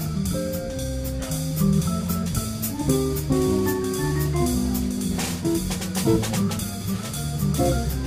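Live jazz from a Hammond organ trio: organ chords and a low bass line, jazz guitar and drum kit played with sticks, with cymbal and drum strikes that are strongest past the middle.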